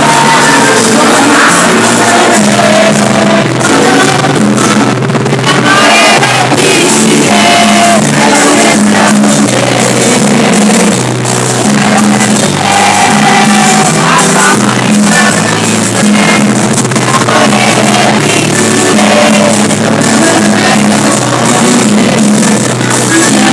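Live cumbia band playing loud, with a steady bass line and a lead singer.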